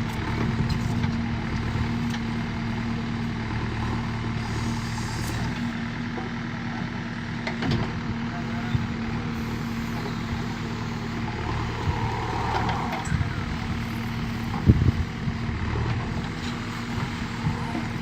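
JCB 3DX backhoe loader's diesel engine running steadily under work, with one sharp knock about three quarters of the way through.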